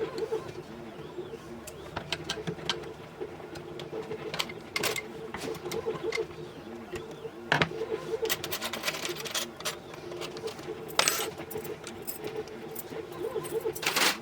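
Small metal parts clicking and clinking as they are handled during pinball playfield disassembly, with irregular sharp clicks over a steady low hum.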